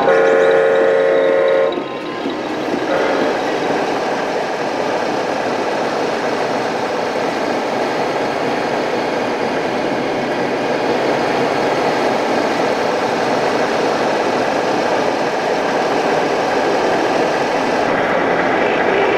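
Air-horn blast from an RC model truck's sound module: a loud, steady multi-tone horn that cuts off after a second or two, with a short faint second toot a moment later. After that, a steady din of the hall and the running model trucks.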